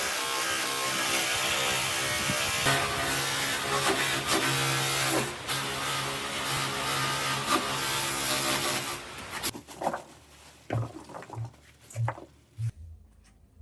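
An electric power tool runs steadily with a motor hum and hiss, then shuts off about nine and a half seconds in. A few short knocks and taps follow as the work is handled.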